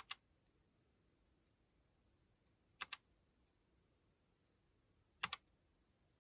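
Three single key presses on a Keychron K1 low-profile keyboard with red linear switches, about two and a half seconds apart, each a quick double click as the key goes down and comes back up, pressed to cycle through the backlight modes.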